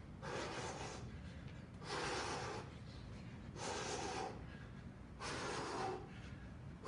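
A man breathing hard from exertion while throwing fast punches in place: four heavy breaths, each under a second long, about one and a half seconds apart.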